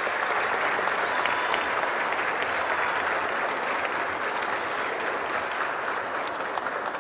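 A crowd of people clapping steadily, easing off a little near the end.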